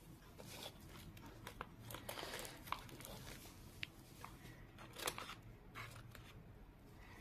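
Faint rustling of paper and scattered light clicks as gloved hands handle paper craft pieces and small beads.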